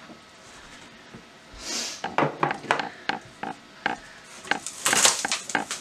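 Cardboard shipping box being opened out by hand: a rustle about a second and a half in, then a run of sharp taps, scrapes and knocks of cardboard flaps and styrofoam packing, busiest near the end.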